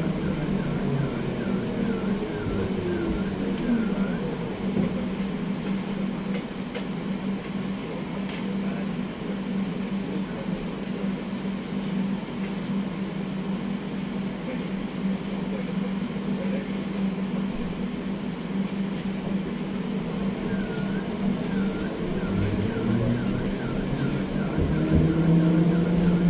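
Pesa 122NaL Swing tram heard from inside the passenger saloon. The traction motor whine falls in pitch at the start as the tram slows. After a quieter stretch it rises again as the tram gathers speed near the end, over a steady hum.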